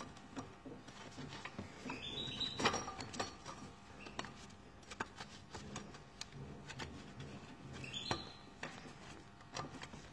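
Faint handling noise from a rubber toothed timing belt being worked onto the engine's sprockets by gloved hands: scattered light clicks and rubbing. Twice, a brief high chirp rises over it.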